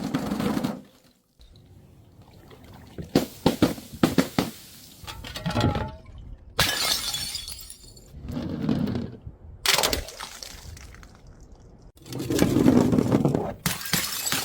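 Glass bottles breaking: a series of separate crashes and shatters with gaps of a second or two between them, each followed by a short ringing clatter of glass.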